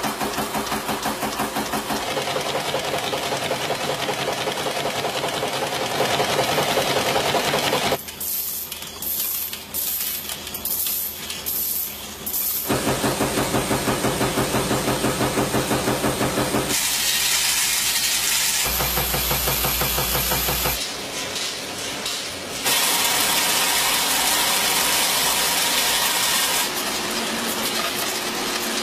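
Coin-minting machinery: presses cycling with several strokes a second, broken by spells of hissing air bursts and stretches of steady machine running. The sound changes abruptly several times.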